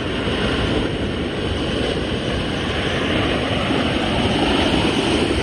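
Flash-flood water rushing down a desert wash, carrying logs and debris: a steady, loud rushing with a deep rumble underneath.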